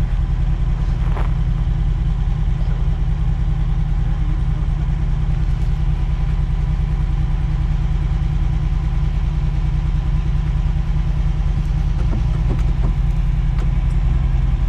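Ferrari Dino 246's V6 engine idling steadily, heard from inside the cabin.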